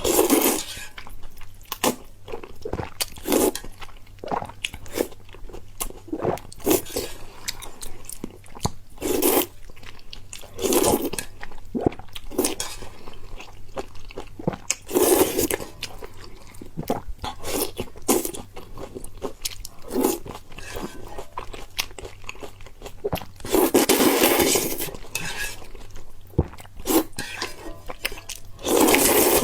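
A person eating close to the microphone: wet chewing with many sharp crunchy clicks and, every few seconds, louder noisy bursts of biting and mouth sounds.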